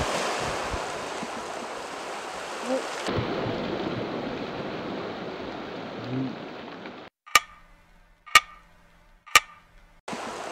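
Waves washing on a rocky shore with wind on the microphone. About seven seconds in this cuts out, and three sharp ringing clicks follow, about a second apart.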